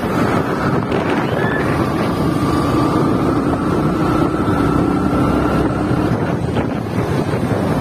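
Wind buffeting the microphone of a camera riding along a traffic-filled road, over a steady rumble of engines and tyres. A faint engine note and a thin whine run through the middle and fade about six seconds in.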